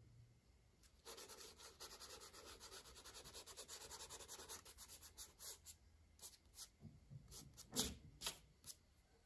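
Crayon rubbing on paper in a run of quick back-and-forth shading strokes lasting about four seconds, then a few separate strokes, one of them louder with a light bump.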